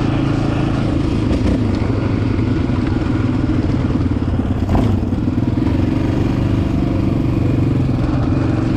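Yamaha Raptor 700R ATV's single-cylinder engine running steadily while riding, with a brief clatter about halfway through.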